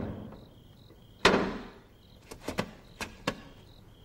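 Two heavy thuds against a wooden door about a second apart, each dying away slowly, followed by a few lighter knocks; crickets chirp faintly.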